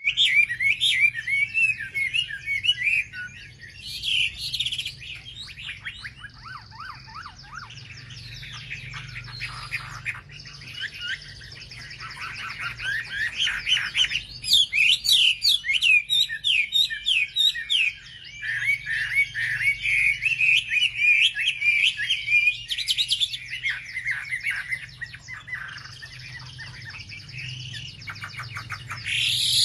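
Wambi songbird singing: bursts of fast chattering trills and quick chirps, with short quieter pauses between phrases, over a faint steady low hum.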